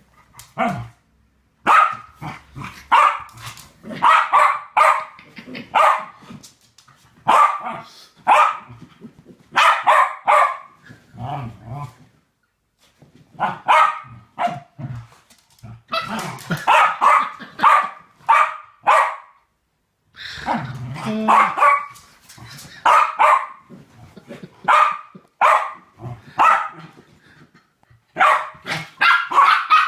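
West Highland Terriers play-barking in quick runs of short, sharp barks with brief pauses between the runs.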